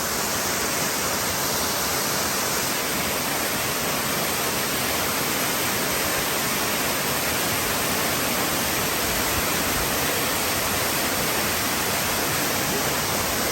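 Waterfall rushing steadily: a constant, even noise of falling water.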